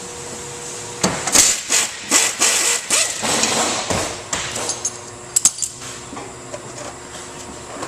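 Clicking and knocking of car engine-compartment side covers and their fasteners being unclipped and handled. The knocks come in a quick cluster for about three seconds, then a few sharp clicks about halfway through.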